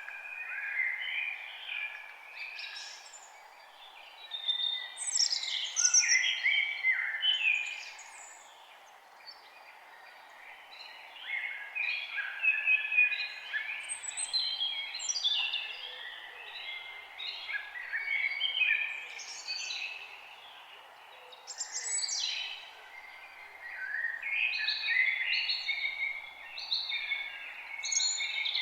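Forest birds singing, many short chirping and whistled phrases overlapping in bursts, with brief lulls between bouts, over a faint steady background hiss.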